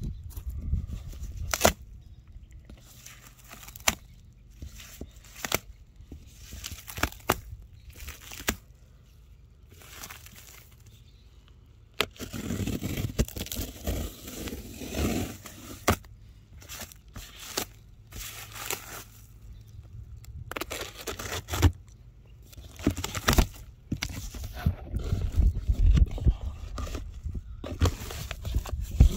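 Cardboard shipping box being slit open with a knife and handled: scattered sharp clicks and taps among stretches of scraping and crackling from the packing tape and cardboard, and the flaps being pulled open near the end.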